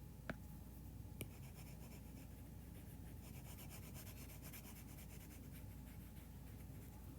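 Faint scratching of writing strokes, with two light taps in the first second or so.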